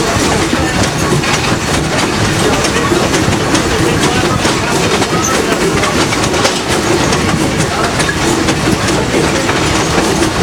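A passenger railroad coach rolling along the track, a steady rumble with wheels clicking over the rail joints.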